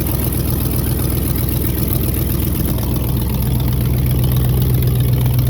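1961 Ford F100's 351 Windsor small-block V8 idling steadily, its note swelling slightly a little past halfway through.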